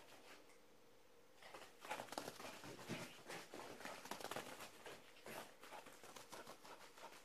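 Small dog's paws and claws pattering and clicking on a bare floor as it runs and scrabbles after a laser dot: faint, rapid ticking that starts about a second and a half in.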